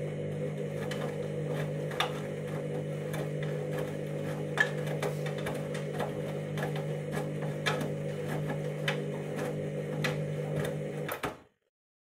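Candy Grand'O Vita washing machine running mid-wash on a half-load synthetics cycle: a steady motor hum with irregular clicks and knocks from the drum. The sound cuts off suddenly about eleven seconds in.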